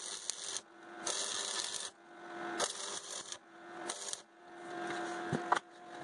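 Electric arc welding on steel sheet, likely MIG: about five short bursts of crackling sizzle, each around a second long, with a steady hum running under each burst and stopping between them.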